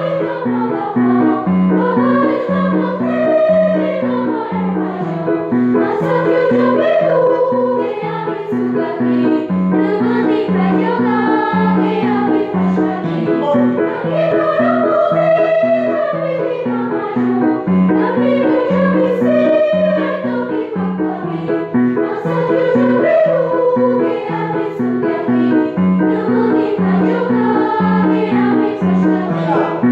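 Music: a melody over a steady, pulsing low accompaniment.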